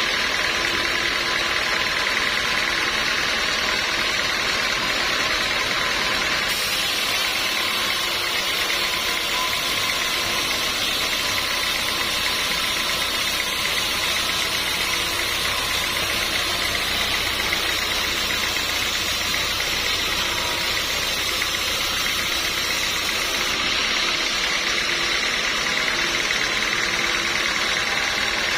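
Sawmill saw running steadily. About a quarter of the way in, a harsher, hissier sound joins as the blade cuts through teak wood, and it falls away again near the end.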